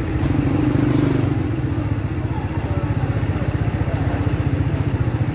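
Motor scooter engine running as a scooter passes close by, louder in about the first second, over a steady low engine rumble with a fast even pulse.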